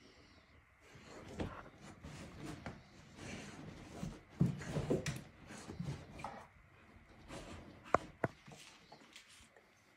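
Bull terrier nosing and pawing at a thick shaggy rug to bury a bone, making soft irregular rustling and scuffing. Two sharp clicks come close together near the end.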